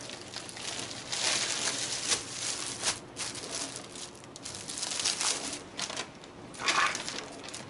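Plastic packaging crinkling and rustling in irregular bursts as a plastic-wrapped pair of slides is pulled out of a poly mailer bag and handled.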